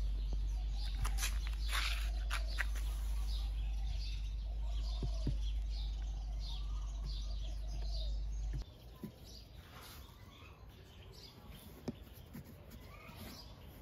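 Birds chirping, many short repeated chirps, over a low steady hum that cuts off suddenly about two-thirds of the way through, after which the chirping continues more faintly.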